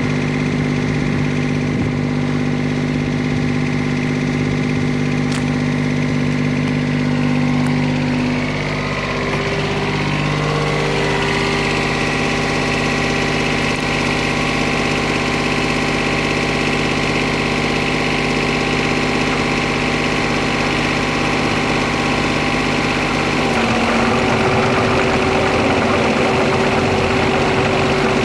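Komatsu PC10-7 mini excavator's diesel engine running steadily. Its note shifts in pitch about a third of the way in, then changes again and gets a little louder with a higher whine near the end.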